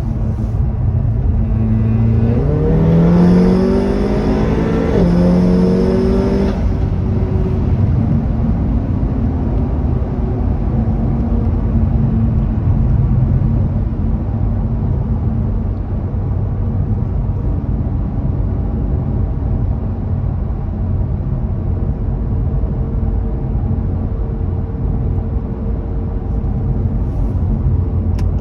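Car engine revved twice in quick succession, pitch rising with a whine on each rev, then settling to a steady idle.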